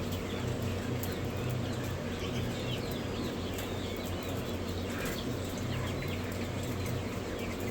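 Many baby poultry chicks peeping continuously in a brooder, short high chirps overlapping one another, over a steady low hum.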